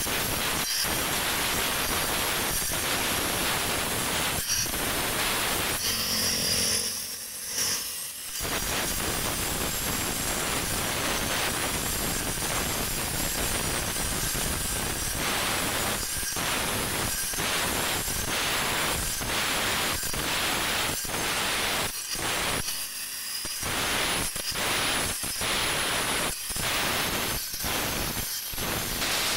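Handheld angle grinder with a disc grinding into white stone: a continuous, loud grinding noise that drops away briefly about seven seconds in and again around twenty-three seconds.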